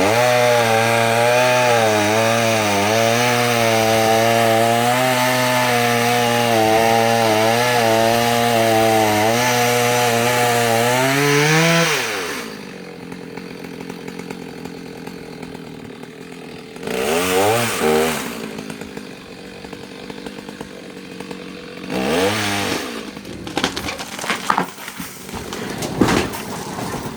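Chainsaw cutting into a tree trunk at full throttle for about twelve seconds, its pitch wavering under the load of the back cut, then rising as the load comes off and dropping to idle. Later the saw idles, with two short revs.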